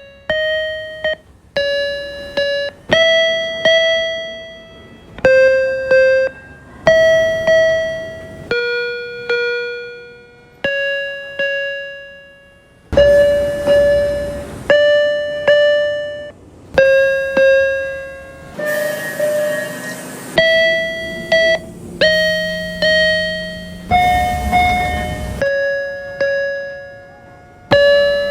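MBTA Orange Line subway car interior door chimes, played one clip after another: short electronic chimes of a few ringing tones each, struck and fading, about one every one to two seconds. Under some of them the train's running noise can be heard.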